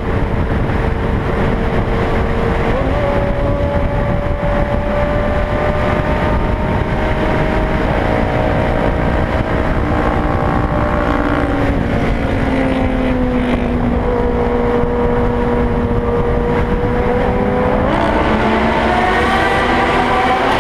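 Loud, continuous vehicle noise: a steady rumble with whining tones that hold a pitch and then step up or down, rising near the end as if gathering speed.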